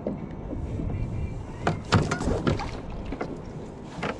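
Plastic fishing kayak on the sea: water slapping and sloshing against the hull, with several sharp knocks as gear is handled on board. The loudest knock comes about two seconds in, and another comes near the end.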